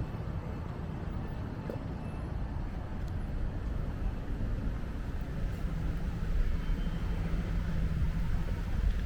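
Wind buffeting the microphone: a steady low rumble over outdoor ambience, growing slightly louder toward the end.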